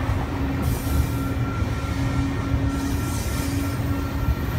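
A double-stack container freight train rolling past close by: a steady rumble of wheels on rail, with a thin squealing tone from the wheels that comes and goes.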